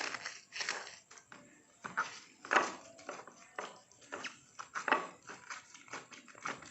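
Hands crushing and squeezing fresh dadap leaves in a little water: an irregular run of short crackles and rubs, loudest about two and a half and five seconds in.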